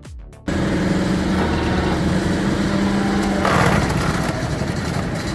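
Wood-splitting machine's engine running steadily with a low hum, cutting in abruptly about half a second in. Just past the middle, a harsher rush of noise rises over it for under a second.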